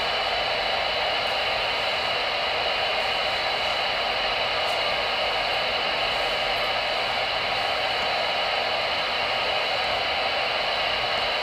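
Steady static hiss from a Voyage CB radio's speaker on an open AM channel, with no voice coming through.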